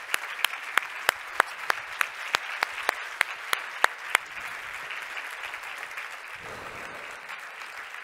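Audience applauding, with one nearby pair of hands clapping sharply and steadily about three times a second until about four seconds in; after that only the general applause of the hall goes on.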